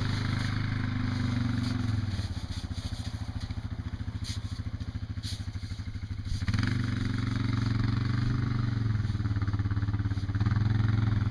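A small engine running steadily with a fast, even pulse; it drops in level about two seconds in and comes back up about six and a half seconds in.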